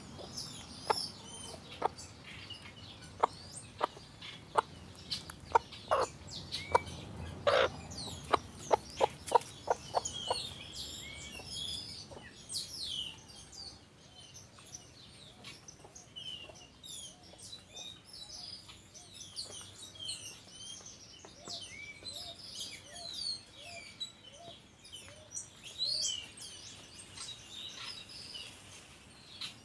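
Birds calling: a run of short, sharp clucking calls about twice a second for roughly the first ten seconds, then many small birds chirping high and fast.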